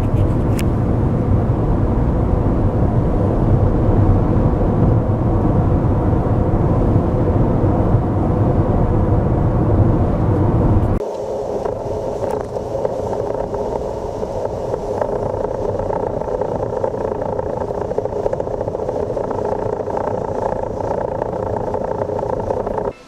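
A car recorded while running to capture an abnormal noise from its steering system, a fault that persists after the steering gear was replaced because another part has failed. A heavy, steady low rumble gives way abruptly about eleven seconds in to a lighter, steady noise.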